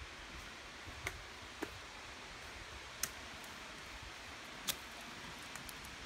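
Faint steady hiss with four sharp, irregularly spaced clicks, as from steps or handling while walking over dry rocks.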